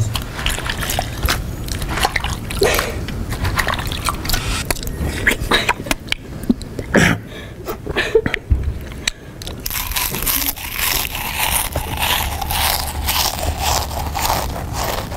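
A person eating noisily on purpose: loud crunching and chewing with wet slurping, smacking mouth sounds. A denser rustling sound takes over about ten seconds in.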